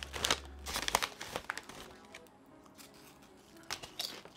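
Plastic snack wrapper crinkling as it is handled, in irregular crackly bursts that are busiest in the first second and a half, with a few more near the end.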